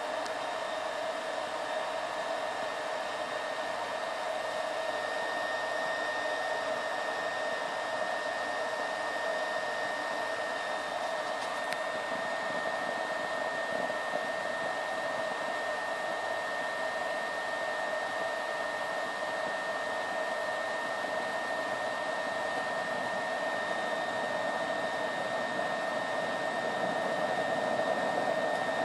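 BioLite camp stove's built-in fan, powered by its thermoelectric generator, blowing a steady stream of air into the fire of a burning oil-soaked cotton pad, with a steady whine over the rush of air. It grows slightly louder near the end as the flame builds.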